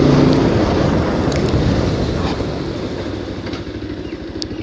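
Bajaj Pulsar 220 single-cylinder motorcycle engine running and steadily fading away, the bike cutting out as it runs short of petrol.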